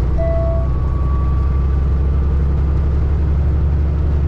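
Peterbilt 579 semi truck cruising on the highway, heard from inside the cab: its Cummins ISX15 diesel and the road noise make a steady, loud low drone. A brief faint tone sounds just after the start.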